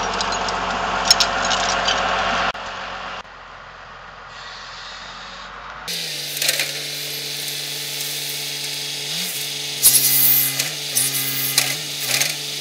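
Engine of a loader-mounted tree spade running steadily, its pitch dropping and rising several times as the spade's blades are driven into the ground around a large tree. Before that, near the start, there are metallic clinks of a chain being handled.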